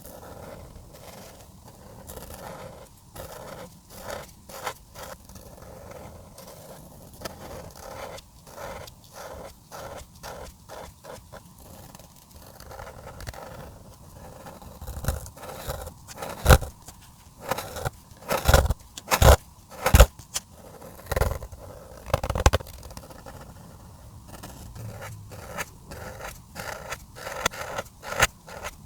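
Marker tips scraping across paper in a long run of short colouring strokes, with a cluster of louder strokes in the middle.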